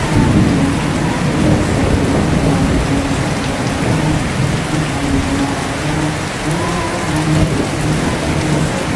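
Steady heavy rain. Beneath it a voice chants shalawat in long held, gently bending notes.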